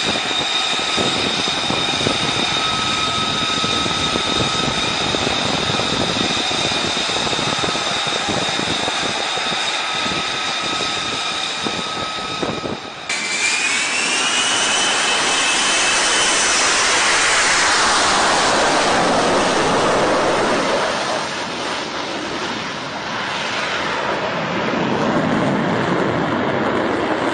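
F-35B fighter jet engine running, a loud roar with a steady high-pitched whine. After a sudden cut about halfway, a whine rises and a rush of jet noise swells and falls in pitch, settling into a lower rumble.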